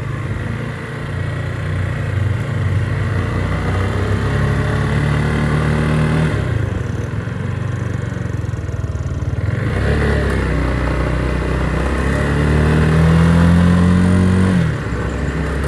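Motorcycle engine running under way as the bike is ridden, its pitch climbing as it accelerates. Near the end the pitch drops suddenly, as at a gear change.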